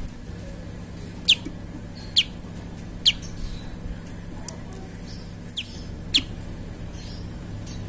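Prinia (prenjak) calling: about six short, sharp chirps, each sweeping down in pitch, spaced about a second apart. A steady low hum runs underneath.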